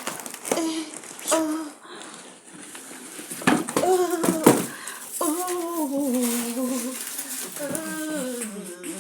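A woman humming a wordless tune, with long held notes that slide in pitch. A few knocks and handling sounds come in the first seconds.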